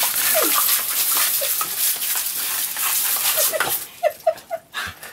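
Garden hose jet nozzle spraying with a steady hiss while a puppy lets out short, high yelps and whines at the water. The spray cuts off a little before the end, leaving a few sharper yelps.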